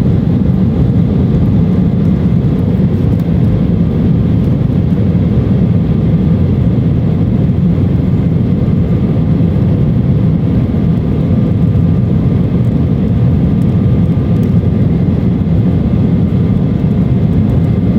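Embraer E-170 airliner's GE CF34 turbofans and airflow, heard from the passenger cabin during take-off: a loud, steady low rumble with a faint steady high whine over it.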